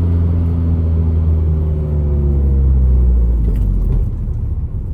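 Hyundai Genesis Coupe 2.0T's turbocharged four-cylinder engine running, its pitch slowly falling over the first three seconds or so and easing off about four seconds in.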